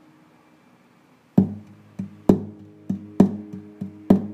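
Guitar picking the single-note intro of a folk ballad, starting about a second and a half in: about seven plucked notes in a repeating long-short rhythm, each ringing on.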